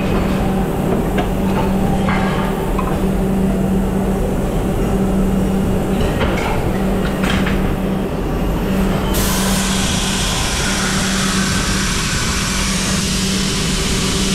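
Die-casting machine running with a steady low hum. About nine seconds in, a loud hiss of compressed air starts suddenly and keeps going as the spray gun blows release agent onto the open die.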